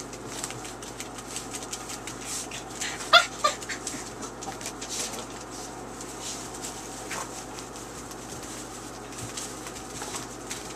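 Puppies playing and tussling in wood shavings, their paws scratching and rustling in the shavings. About three seconds in there are two short, sharp, high yelps close together.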